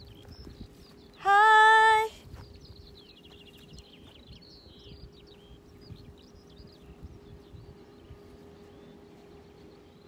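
A single held high 'ooh' from a person's voice, lasting about a second, its pitch rising at the start and then steady. After it come faint, scattered high chirps over a faint steady hum.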